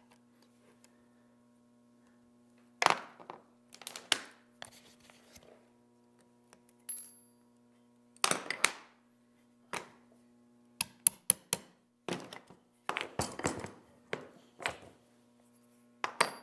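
Irregular taps, clicks and scrapes of hand work on the copper ribbon leads of a Model T magneto field coil, a flat blade pressing and bending the strips against the coils. The sharpest knocks come about three seconds in, at eight seconds, in a run around eleven to thirteen seconds, and just before the end, over a faint steady hum.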